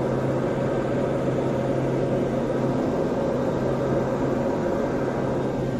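Steady drone of a turboprop engine and propeller heard inside a small aircraft's cabin: a constant low hum and a higher steady tone over a rushing noise.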